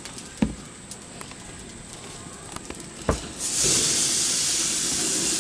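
Two short knocks, then a little over three seconds in, loud steady sizzling starts as raw New York strip steaks go down on the hot grill grates.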